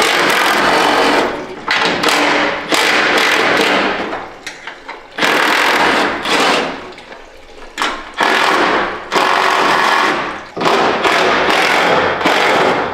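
Cordless power tool spinning bolts out of a truck's sheet-metal radiator support in about eight bursts of a second or so each, with short pauses between.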